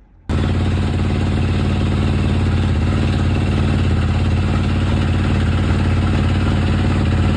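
KTM dirt bike engine running steadily on its newly fitted carburettor, loud and even with no revving. It starts abruptly about a third of a second in.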